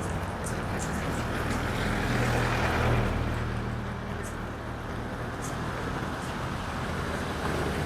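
A motor vehicle's engine passing by, rising to its loudest about three seconds in and then fading.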